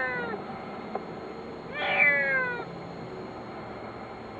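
A kitten trapped inside a pipe meowing: the end of one call at the start, then one long meow falling in pitch about two seconds in, with a faint click about a second in.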